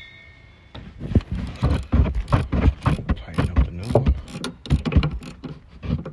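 Hand ratchet wrench clicking in quick, uneven strokes with low metallic knocks, as a coil spring compressor is worked on a car's rear coil spring.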